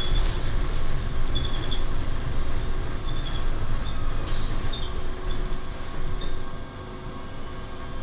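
Cabin of a Scania battery-electric city bus on the move: a steady low road and tyre rumble with scattered light rattles and squeaks from the interior fittings. The rumble drops off a little near the end.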